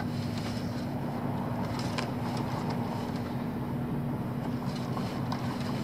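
Steady low electrical hum of running air-conditioning condensing-unit equipment, with a few light clicks of wires being handled, one about two seconds in and a couple near the end.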